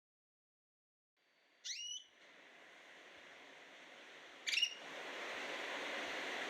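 Two short rising bird chirps, one about two seconds in and one a few seconds later, against near silence, followed by a faint steady hiss that fades in near the end.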